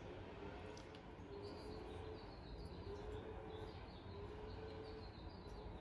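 Faint baby vocalizing: a string of short held notes, over a steady background hiss.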